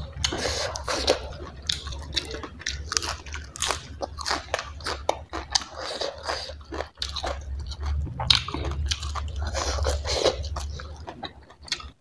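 Close-miked chewing of a mouthful of food, with repeated crunches and wet mouth clicks, over a low steady hum.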